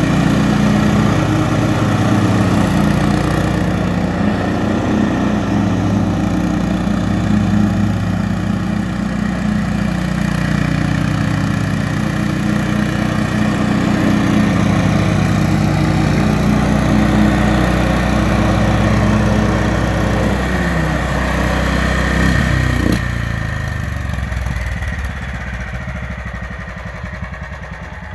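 Gasoline engine of a radio-controlled commercial walk-behind lawn mower running steadily at speed while the mower drives. About three-quarters of the way through, its note falls over a couple of seconds, and it drops to a quieter, lower run.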